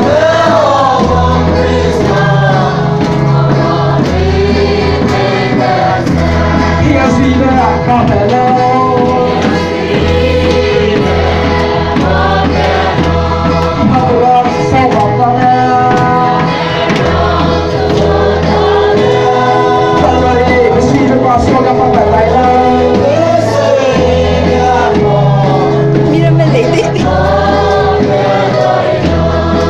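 A group of people singing a hymn together, choir-style, over an instrumental accompaniment whose bass notes change every second or two.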